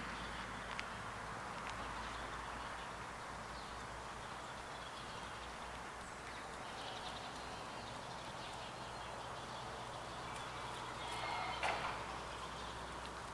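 Quiet outdoor background with faint, scattered bird chirps. Shortly before the end there is a brief louder noise as two dogs walk past.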